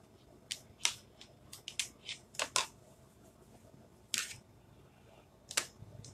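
A series of light, sharp clicks and taps, irregularly spaced and bunched in the first few seconds, then two more near the end: small plastic craft supplies (jar, lid, squeegee) being handled and set down on a tabletop.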